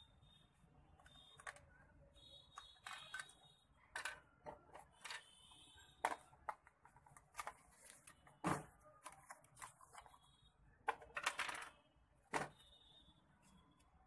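Plastic RC rock crawler and its remote being handled and put down on a wooden table: irregular clicks, knocks and rattles of plastic. The loudest knocks come about halfway through and again near the end.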